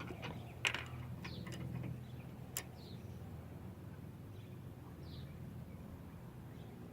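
Quiet background with a steady low hum and a few short, faint bird chirps, broken by two sharp clicks about two seconds apart from parts or tools being handled.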